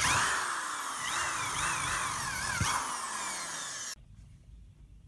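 Power drill sanding the paint off a steel seat bracket down to bare metal to make a ground point for the amplifier. Its whine repeatedly falls and recovers, and it stops suddenly about four seconds in.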